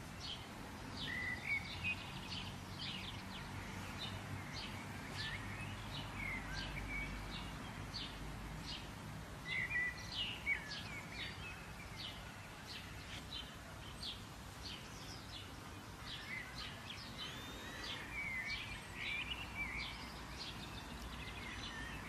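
Birds chirping repeatedly in short, quick notes, some sliding in pitch, over a steady outdoor background hiss and low rumble.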